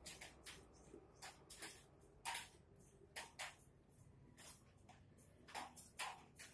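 Light metallic clicks and taps of a small steel bowl and utensils knocking against a stainless steel basin as things are handled in it, about ten irregular clicks.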